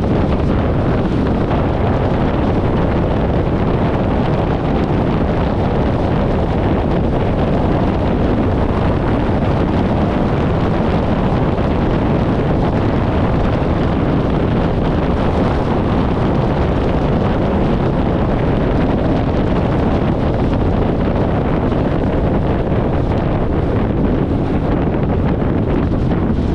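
Steady rush of wind buffeting an externally mounted camera's microphone on a car moving at highway speed, with road and engine noise from a 1994 VW Gol underneath.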